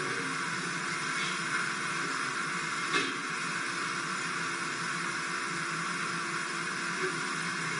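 Steady hiss of background noise, with one faint click about three seconds in.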